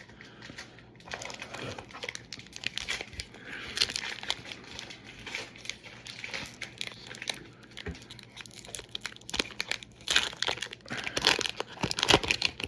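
Foil wrapper of a Pokémon card booster pack crinkling and tearing as it is handled and opened, in irregular crackles that get denser and louder about ten to twelve seconds in.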